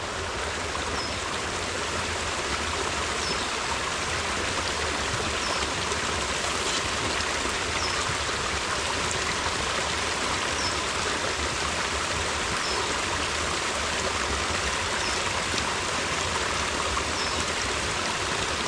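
Water running steadily at a mountain spring: an even, unbroken splashing and rushing of a small stream.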